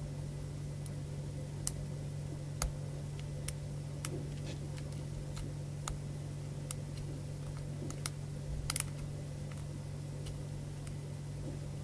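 Lock pick and tension tool working inside a brass ABUS 60/50 padlock during single-pin picking: small, sharp metallic clicks at irregular intervals as the pins are lifted, over a steady low hum.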